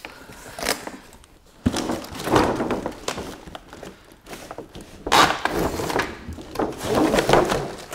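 Cardboard toy box and its clear plastic packaging being handled and pulled open: rustling, crinkling and scraping in two longer spells, with a single thunk about one and a half seconds in.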